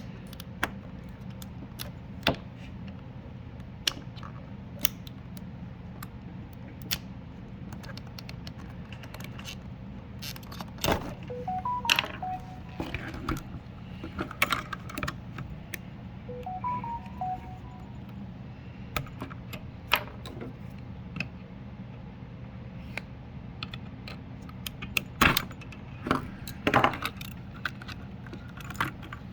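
Scattered sharp clicks, taps and rattles of hands and a tool working the plastic clips and parts of a Subaru fuel pump hanger, busiest in two clusters, about a third of the way in and near the end, over a steady low hum.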